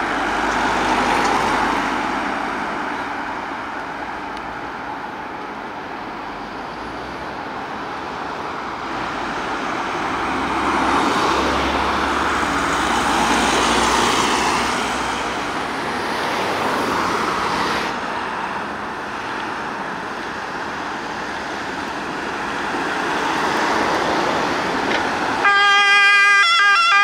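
Emergency vehicles passing on the road, a steady rush of engine and tyre noise that swells and fades as each goes by. Near the end, a loud two-tone siren starts up as the fire brigade's Mercedes G-Class command vehicle approaches.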